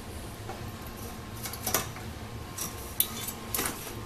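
Steel tube frame of a Rock N Roller R16 folding multi-cart clicking and clanking as it is unfolded: a few separate light metal knocks, the first about one and a half seconds in and two more near the end.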